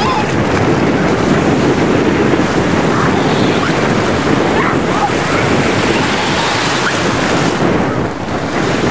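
Wind blowing hard across the microphone over a steady rush of water, as a Hobie catamaran sails fast with one hull flying.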